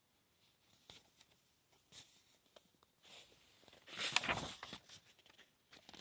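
A picture book's paper page being turned: a soft rustling swish about four seconds in, after a few faint ticks of handling.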